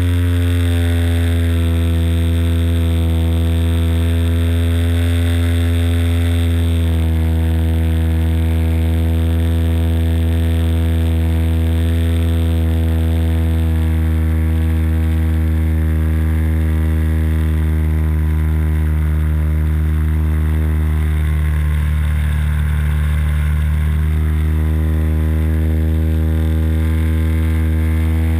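Engine of a radio-controlled Bücker Jungmann biplane model running steadily in flight, heard close up from a camera mounted in the model's cockpit. Its pitch shifts a little now and then.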